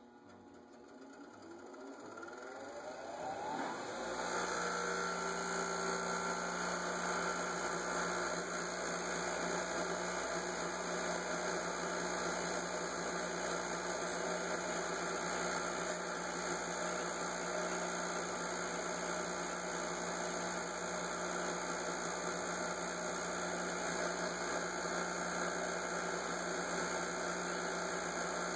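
Craftsman bench grinder switched on: the motor spins up with a rising whine over the first few seconds, then runs steadily with a hum while a small part is held against the spinning wheel.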